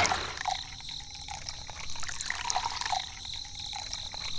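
Water trickling, swelling and fading every couple of seconds.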